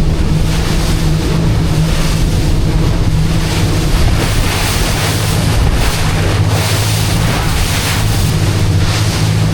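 Motorboat engine running steadily under way, with wind buffeting the microphone and water rushing past the hull.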